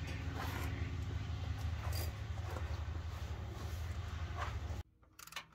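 A steady low hum with a few faint scrapes and clicks as a hex bolt with its washers is fitted by hand up into the truck's frame. The hum cuts off abruptly near the end.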